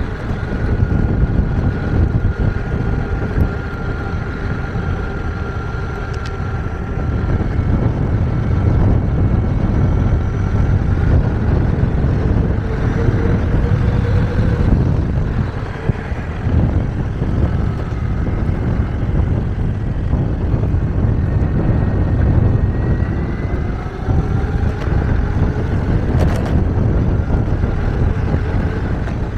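An electric mountainboard rolling on rough asphalt: a steady rumble from its pneumatic tyres, with a thin electric-motor whine that rises and falls in pitch as the speed changes.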